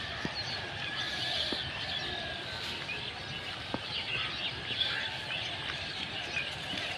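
Rural outdoor ambience with small birds chirping and twittering, plus a few faint clicks.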